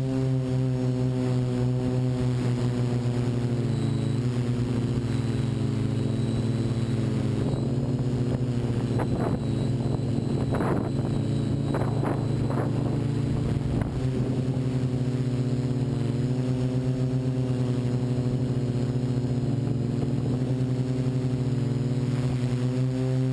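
Multirotor drone's electric motors and 12-inch propellers humming steadily in flight, the pitch shifting slightly now and then as the motors adjust. A few short rushes of noise come through about halfway.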